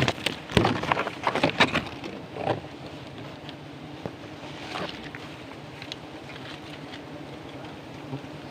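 Steady hum of wild honeybees buzzing around their nest, with sharp clicks and rustling from a knife cutting at the comb and branches in the first couple of seconds and once more about five seconds in.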